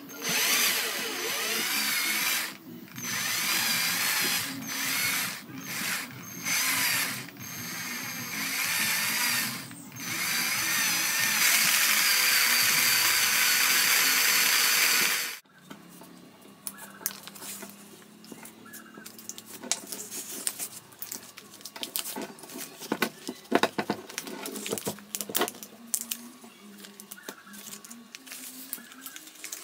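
Cordless drill spinning the input shaft of a homemade RC truck rear axle, whirring its gears in several short bursts and then a steady run of about five seconds that stops abruptly halfway through. After that come light clicks and rustling from hand work on the axle.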